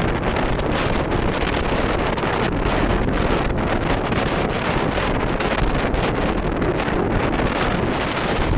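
Steady rush of wind over the microphone of a camera on a moving bicycle.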